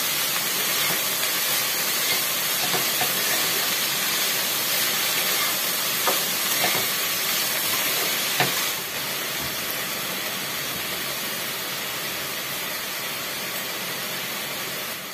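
Shredded cabbage and other vegetables sizzling in a kadai while a spatula stirs them, with a few short scrapes against the pan. The stirring stops about nine seconds in, leaving a slightly quieter steady sizzle.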